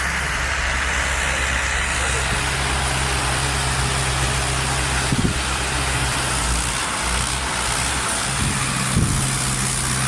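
A heavy machine's engine running at a steady speed, with two short thumps about five and nine seconds in.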